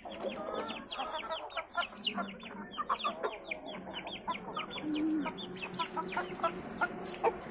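Chickens clucking and calling, with a constant stream of quick, high, falling chirps, several a second.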